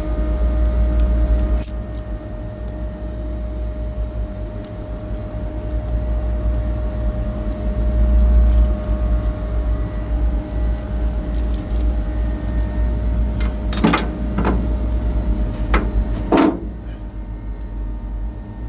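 Metal clinks and taps of a hand tool working on a chiller's oil filter housing, with a few sharp knocks about two-thirds of the way through, over a steady low rumble and a constant hum.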